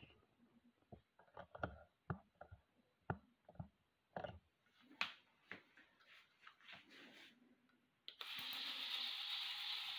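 Scattered light clicks and knocks, then about eight seconds in the small 3D-printed Strandbeest walking robot's electric motor starts and runs with a steady whir as the robot walks off.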